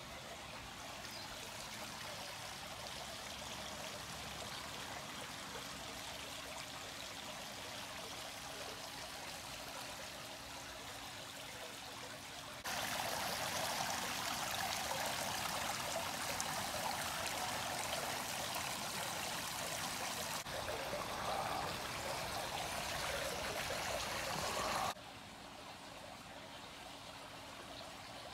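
Hot spring water running steadily from a pipe into a tiled bath. Partway through, it changes abruptly to a louder rush of water welling up and spilling over a round fountain head in an open-air bath. Near the end it switches back to the quieter pouring.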